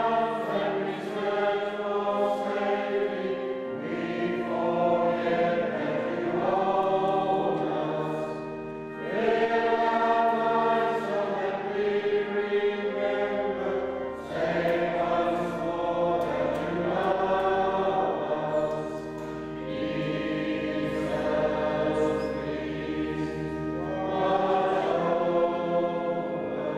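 Church congregation singing a hymn together in unison, in long held phrases with brief breaks between them.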